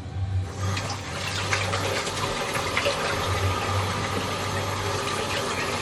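Kitchen tap turned on about half a second in, water running steadily.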